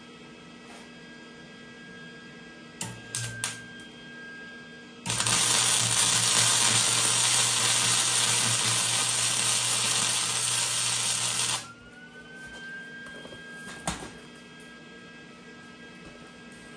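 MIG welder tacking a steel bump-stop can onto its bracket: a steady crackling hiss for about six seconds in the middle, cutting off suddenly. A few light clicks of handling come before it.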